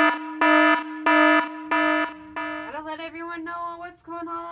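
Electronic alarm sound effect: a buzzy tone beeping in about four half-second pulses, roughly one and a half a second, that stops a little over two seconds in. A woman's voice follows.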